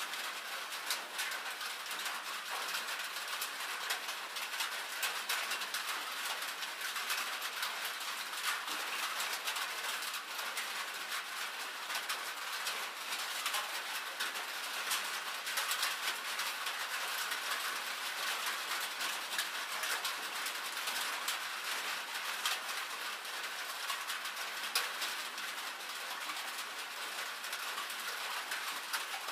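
Rain falling on a thin tin sheet-metal roof: a steady, dense patter of many small drop ticks on the metal.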